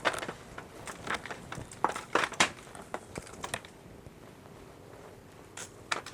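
Irregular crackling and crinkling of brittle tamarind pods and dry plant material being handled, with a cluster of louder sharp cracks about two seconds in and a quieter spell near the end.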